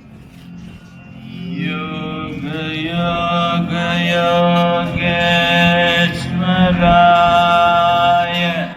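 Devotional mantra chanting over a steady low drone. The chant swells in from about a second in, with rising slides and then long held notes.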